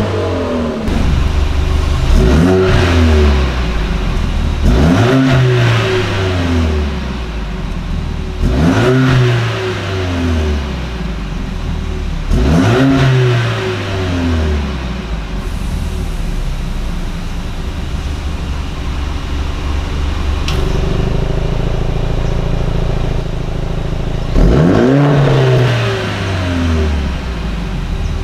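Mercedes-AMG CLA45 S turbocharged 2.0-litre four-cylinder free-revving through an Akrapovič Evolution titanium cat-back exhaust with the stock downpipe. It gives a string of blips, each rising quickly and falling away more slowly, then settles to a steady idle for several seconds before one more rev near the end.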